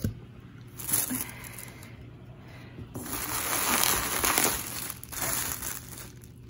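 Plastic wrapping and bubble wrap crinkling as they are handled and pulled aside by hand, in a few rustling bursts, the longest starting about three seconds in.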